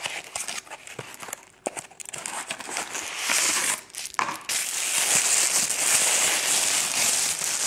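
Light clicks and scrapes as a small cardboard box is opened by hand. From about three seconds in, tissue paper crinkles loudly and without a break as a wrapped item is unwrapped.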